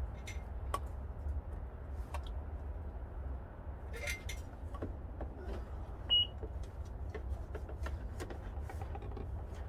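Faint rustling and small clicks of wire being fed by hand through a grommet hole in a car's rear hatch, over a steady low rumble. A single short high chirp sounds about six seconds in.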